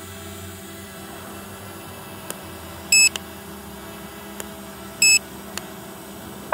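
Two short, high electronic beeps about two seconds apart, over a steady hum from the Hubsan Zino Mini Pro drone hovering a few feet off the ground.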